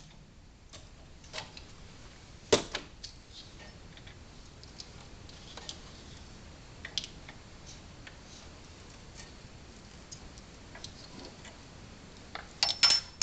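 Scattered light clicks and clinks of hand tools and metal parts during work on a truck's front suspension while a shock absorber is removed, with a sharper knock about two and a half seconds in and a quick cluster of clinks near the end.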